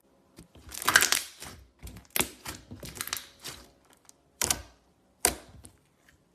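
Slime being squeezed and kneaded by hand: a run of crackly, clicking squishes as trapped air pops. The loudest comes about a second in, with shorter ones following in clusters.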